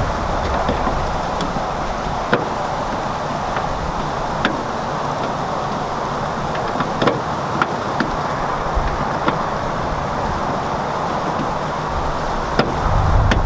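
Steady outdoor background noise with a few scattered light clicks as the small plastic license plate light housings are handled and pushed back into place.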